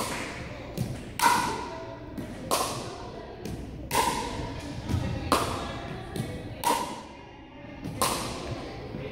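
Pickleball rally: a paddle strikes a plastic pickleball about once every 1.3 seconds, each hit a sharp pop with a ringing tone that echoes through a large gymnasium. Softer ticks come between the hits.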